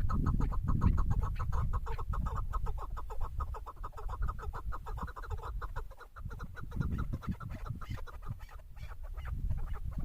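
Chukar partridge calling: a fast, even run of clucking notes that weakens after a few seconds, over a low rumble.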